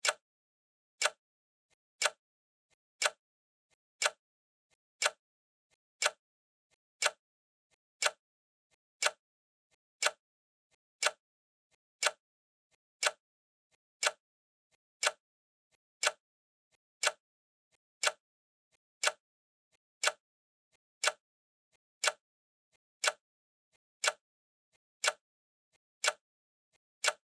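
Clock ticking steadily, one sharp tick a second, each with a much fainter click just before it.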